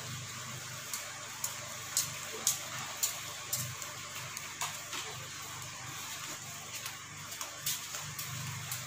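Light clicks and clinks of plates, bowls and glasses being handled during a meal, about a dozen scattered taps, most of them between one and five seconds in. Underneath runs a steady low hum and hiss.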